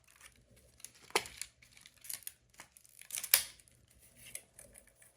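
Packaging being handled and torn: a few short rustles and tearing crinkles, the loudest a little past three seconds in.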